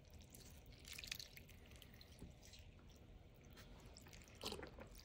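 Faint drips and small splashes of chicken broth being poured into a baking pan of orzo, a little louder about a second in and again near the end, otherwise near silence.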